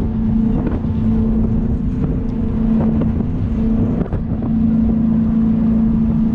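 Jet boat's twin 496-cubic-inch V8 engines running with a steady drone that dips briefly about four seconds in. Wind is rushing over the microphone.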